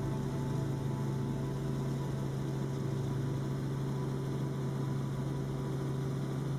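Helicopter engine and rotor droning steadily, heard from inside the cabin.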